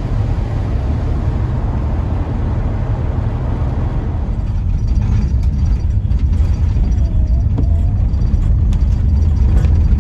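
Steady road and engine rumble inside a moving car's cabin, strongest in the deep low end, with a few faint ticks in the second half.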